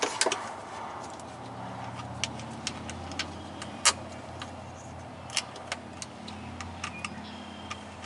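Irregular sharp metallic clicks and taps as a cable lug is fitted and tightened onto a golf-cart battery terminal post, hooking up the positive lead of the 48-volt pack. The loudest click comes about four seconds in.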